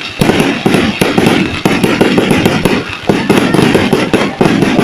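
Aerial fireworks display: a dense, continuous barrage of bangs and crackles that barely lets up.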